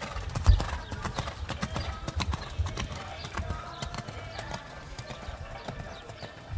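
Hoofbeats of a show-jumping horse cantering across a wet sand arena: a steady run of dull thuds and knocks, the loudest about half a second in.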